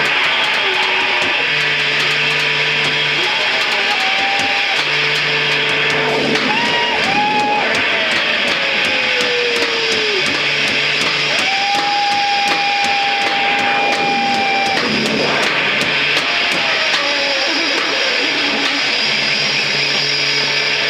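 Live noise music: a dense, unbroken wall of distorted guitar-like noise, with a low tone that switches on and off every few seconds and a few sliding, held feedback-like tones over it.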